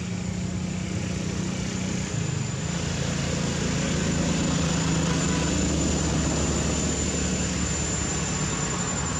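A steady low engine drone, its pitch wavering slightly, under a thin high steady tone.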